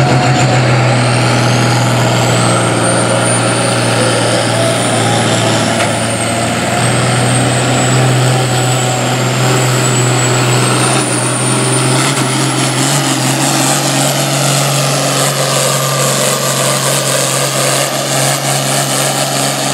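International Harvester 1066's turbocharged six-cylinder diesel running hard under full load while pulling a weight-transfer sled, with a high turbo whistle that rises over the first few seconds and climbs again about two-thirds of the way through.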